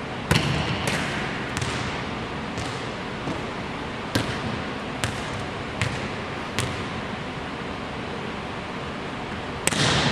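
A volleyball is hit hard in an empty gymnasium, and the loud smack echoes around the hall. A string of lighter knocks follows, about one a second, as the ball bounces on the hardwood floor. Near the end comes another hard hit.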